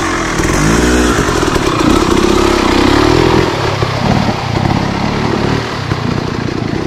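Dirt bike engine revving in quick blips about a second in, then pulling steadily as the bike rides through a shallow river crossing, with water splashing, the engine fading a little as it gets farther away.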